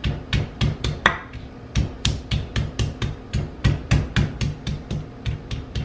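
Stone pestle pounding garlic cloves in a stone mortar, crushing them coarsely: a fast, even run of knocks, about four a second.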